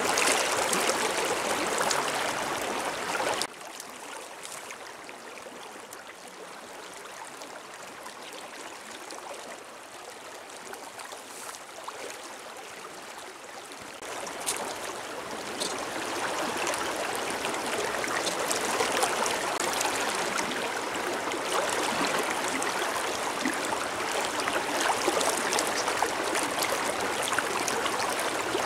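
A river running over stones, a steady rushing of water. It drops suddenly to a quieter level about three seconds in and swells back up around halfway through.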